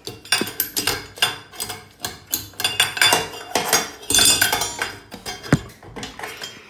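Rapid metallic clinking, rattling and knocking as a ceiling fan is unhooked from its mounting bracket and handled, many small hits in quick succession.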